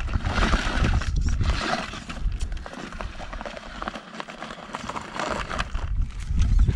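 An RC rock crawler on stock rubber tyres clambers over rock, making irregular knocks and scrapes as its tyres and chassis bump against the stone. A low rumble runs underneath.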